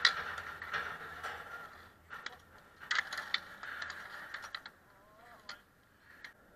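Scattered sharp clacks and knocks of ball hockey sticks striking the ball, each other and the asphalt in a goalmouth scramble, fading quieter toward the end.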